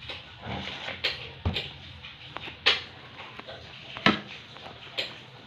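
About ten light, irregular knocks and clicks over a few seconds, the loudest about three and four seconds in.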